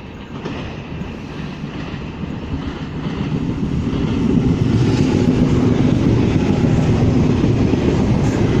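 V/Line express train running through the station at speed without stopping: a rumble of wheels on the rails that builds over the first few seconds, then stays loud and steady as the train passes close by.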